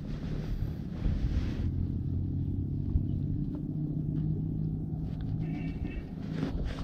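Low, steady engine drone with an even hum, the sound of a motor running at constant speed.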